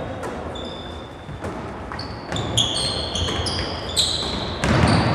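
Basketball being played on an indoor court: many short, high squeaks of sneakers on the floor, mixed with the thuds of the ball bouncing, busier and louder near the end.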